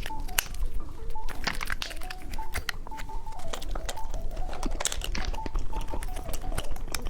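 Close-up eating sounds of a cheese stick snack being bitten and chewed: many quick clicks and wet mouth noises. Faint music with a simple melody plays underneath.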